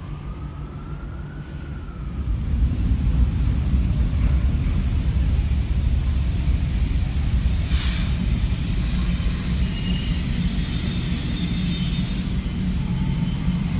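NYC subway garbage train of R32 cars and R127 refuse cars rumbling along the elevated track, the rumble building about two seconds in and holding steady. A high hiss runs through the middle and cuts off near the end, with a few faint high squeals.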